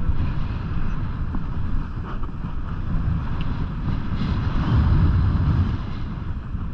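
Wind buffeting an action camera's microphone during a downhill ski run, a steady rumble with the hiss of skis sliding over groomed snow, swelling about four to five seconds in.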